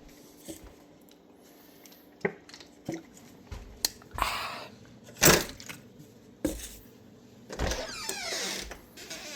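Scattered clicks and knocks with short rustles, the loudest knock about five seconds in, as a cabin door is shut and locked up.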